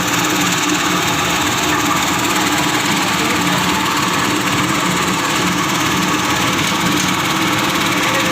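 Plastic scrap washing machine running with a steady mechanical drone.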